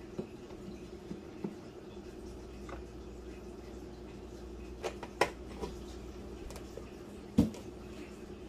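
An oat milk carton being handled over a ceramic mug on a kitchen counter: a few light clicks and knocks, then a louder dull thump near the end as the carton is set down. A steady low hum runs underneath.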